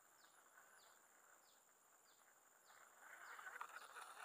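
Faint outdoor ambience: a short, high, falling chirp repeats about every half second over a steady high-pitched tone, with a soft rustle near the end.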